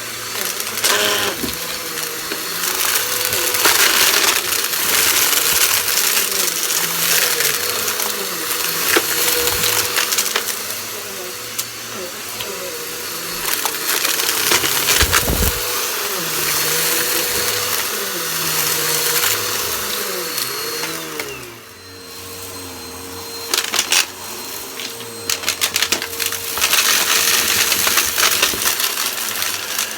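Vacuum cleaner running with a steady motor whine while sucking up crunchy debris, which crackles and clicks through the suction. The sound drops briefly about two-thirds of the way through, then picks up again.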